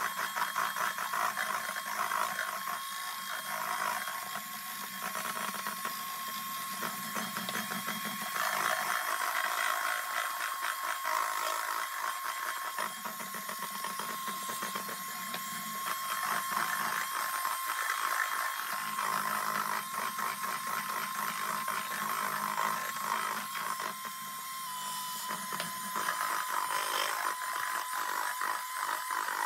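Small electric mixer whisking egg whites to stiff peaks for meringue: a steady motor whine with the beaters rattling against the bowl. The whine steps slightly lower near the end.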